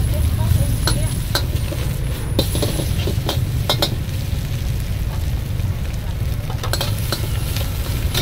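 Metal spatula scraping and clinking against a steel wok as leafy greens and meat are stir-fried, with sizzling from the hot pan, over a steady low rumble. The sharp clinks come irregularly, several in the first four seconds and a cluster near the end.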